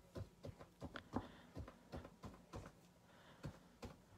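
Paint-covered fingertips dabbing dots of acrylic paint onto canvas: soft, uneven taps, about two or three a second.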